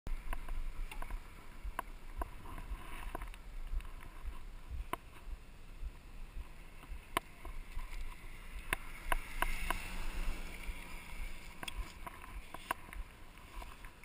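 Bike-mounted camera on a mountain bike rolling along a paved road: steady low wind rumble on the microphone, with scattered sharp clicks and rattles from the bike about once a second. A steady hum with some hiss comes in for about two seconds around the middle.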